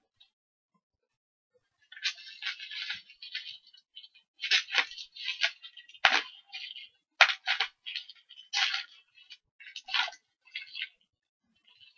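Plastic bubble wrap crinkling and rustling in irregular bursts as it is cut open with scissors and pulled apart, starting about two seconds in, with a few sharp clicks.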